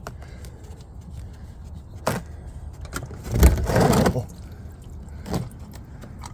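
Tool and metal handling while working at a canister oil filter housing: a couple of sharp clicks and, about three and a half seconds in, a thump followed by a louder scraping rattle lasting under a second.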